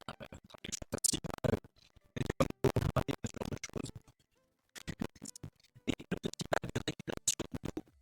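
Bursts of rapid scratching and clicking, broken by a short pause about halfway through.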